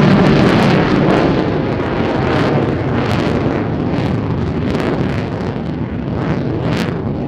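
Jet noise from a Lockheed Martin F-35A Lightning II's single F135 turbofan in afterburner as the jet climbs away: a loud, rough rushing noise with sharp crackles that slowly fades.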